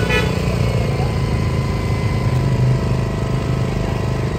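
An engine running steadily with a low rumble and no change in speed. A brief high-pitched tone sounds right at the start.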